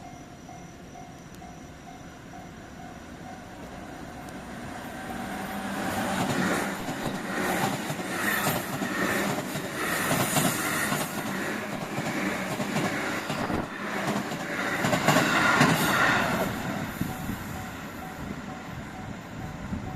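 Electric train passing over a level crossing. Its wheels clatter over the rail joints, building from about four seconds in, loudest through the middle, then fading. A level-crossing warning bell rings faintly behind it at the start and end.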